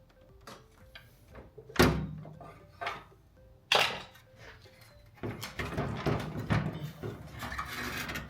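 Sharp knocks and clicks of hand tools and parts being handled, two loud knocks about two seconds apart. Then a few seconds of continuous rattling clatter.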